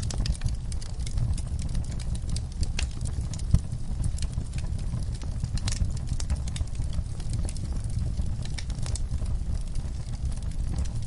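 Wood fire burning in a fireplace: a steady low rumble of flames with frequent, irregular sharp crackles and pops from the burning logs, one pop louder than the rest about three and a half seconds in.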